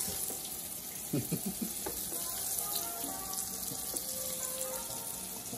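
Kingfish steaks frying in hot oil in a pot, a steady sizzle.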